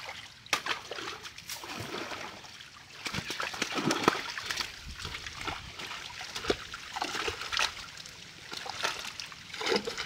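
A mass of live fish thrashing in the shallow water of a pulled-in net, with hands plunging in among them: a steady, irregular run of splashes and wet slaps.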